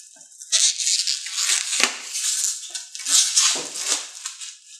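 Plastic shrink wrap crinkling and crackling in irregular bursts as it is cut and pulled off a board game box.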